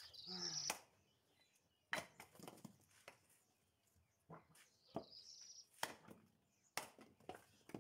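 A hatchet chopping into a log round on a chopping block: about six sharp, irregularly spaced strikes into the wood.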